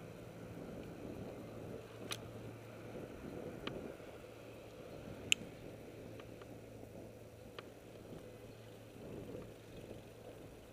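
Road and wind rumble from a camera riding along a city street, with a steady low hum and four short sharp clicks or rattles, the loudest about five seconds in.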